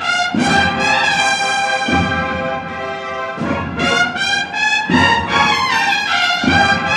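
Holy Week processional band playing a march live: brass holds full chords over heavy low drum strokes that fall roughly every one and a half seconds.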